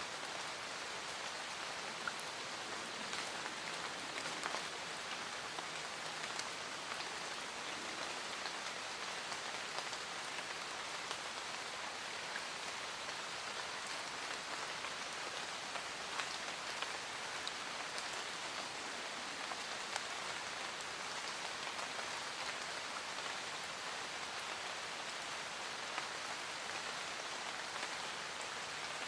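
Steady rain falling, an even hiss dotted with the small ticks of single drops striking a surface.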